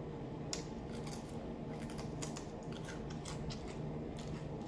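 Crispy fried black bass being pulled apart by hand, its crunchy breading and bones crackling in a string of sharp, irregular clicks.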